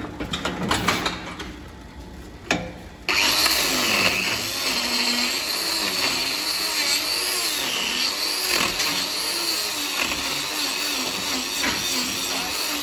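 Handheld angle grinder with a trimming disc starts suddenly about three seconds in and runs steadily against a cow's hoof, grinding down the horn. A few knocks and clatter come before it starts.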